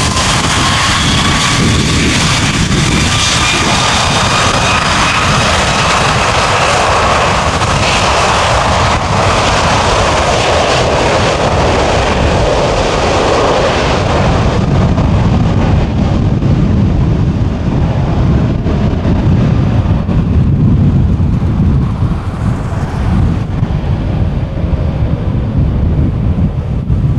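Airbus A330's twin jet engines at high power on the takeoff roll: a loud jet roar with whining fan tones, the high whine fading after about halfway as the airliner moves off down the runway, leaving a low rumble.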